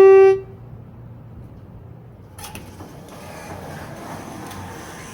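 Schindler elevator arrival chime ending on its lower note, fading within the first half second, then a low hum. About two and a half seconds in comes a click and a steady rushing, the car's doors sliding open.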